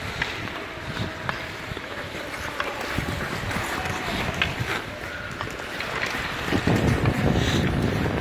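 Ice skates scraping and gliding on ice, with scattered sharp clicks of bandy sticks striking the ball. A low rumble of wind noise on the microphone grows and is loudest near the end.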